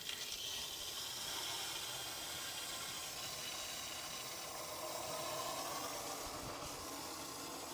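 Steady hiss of air escaping through the loosened air release screws on the Manor Trio filter housings as water flows in at partial pressure to fill them.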